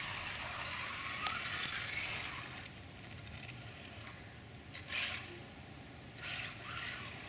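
Mini 1/14 Vaterra Kalahari RC car driving through shallow flowing water: a steady splashing hiss with a faint electric-motor whine that rises as it speeds up, and two brief louder rushes of noise in the second half.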